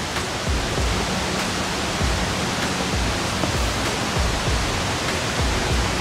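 Steady rushing noise of a nearby waterfall, with irregular low thumps underneath.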